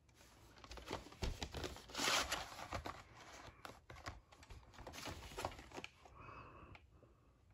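A cardboard VHS sleeve being handled as a plastic videocassette is slid out of it: rustling, scraping cardboard with small plastic clicks, loudest about two seconds in.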